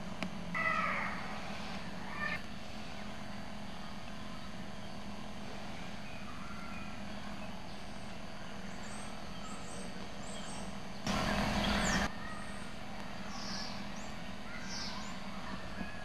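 Scattered short bird chirps over a steady low hum, with a louder call about half a second in and a sudden rush of noise lasting about a second, about eleven seconds in.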